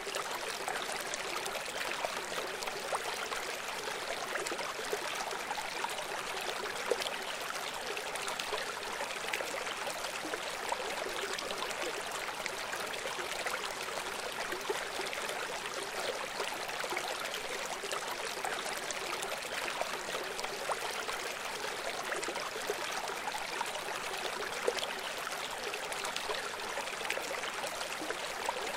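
River water flowing in a steady, unbroken rush, with fine splashing detail in the middle and upper range and little low rumble.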